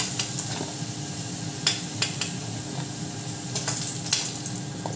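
Potato cubes sizzling steadily in hot oil in a wok (kadai) while a metal spatula scoops them out, clinking against the pan several times.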